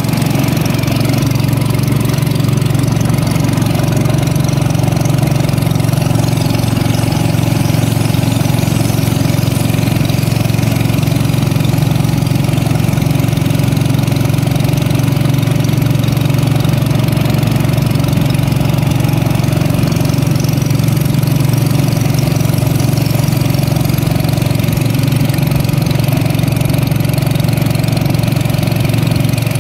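Small petrol engine of a wooden longboat running steadily at an even speed, a loud, unchanging low drone as the boat travels upriver.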